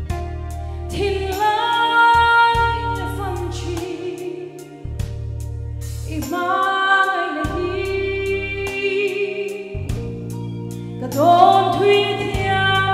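A woman singing a Mizo-language gospel song into a microphone, over accompaniment with a steady beat and bass. She sings three phrases, starting about one, six and eleven seconds in.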